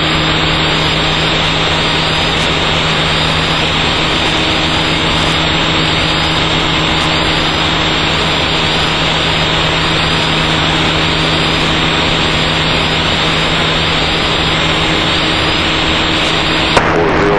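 Steady in-flight cockpit noise of a Mazda rotary-engined Dyke Delta, heard through the aircraft's intercom: a loud, even rushing hiss with a steady low hum. It cuts off abruptly with a click near the end, as the intercom or mic channel closes.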